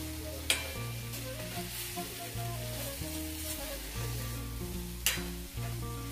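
Metal spatula stirring pointed gourds through a thick poppy-seed paste in a kadai, with oil sizzling and two sharp clacks of the spatula against the pan, one about half a second in and one about five seconds in. Background music with steady low notes plays under it.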